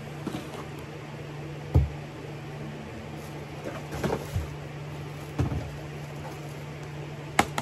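Gift boxes and packages being handled and set down: a few dull thumps and rustles, the loudest a bit under two seconds in and a sharp knock near the end, over a steady low hum.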